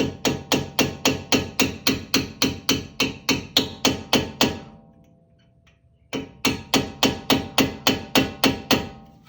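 Hammer tapping the pad retaining pins into the MK2 Audi TT RS's Brembo front brake caliper. Two runs of quick, even metallic taps, about five a second, are separated by a short pause, with a faint ring lingering under the strikes.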